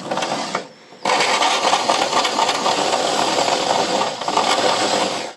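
Drill driving a metal-cutting hole saw into the bus's sheet-metal panel: a short burst, then from about a second in a loud, steady grinding of the saw cutting steel, which stops abruptly near the end.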